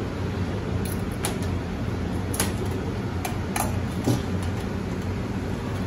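Metal tongs clinking against a stainless-steel hotel pan, about six short sharp clinks in the first four seconds, over a steady low hum.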